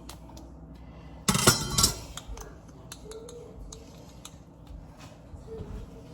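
Kitchen handling sounds: one short, loud clatter of dishes or utensils about a second and a half in, then a few faint clicks and taps.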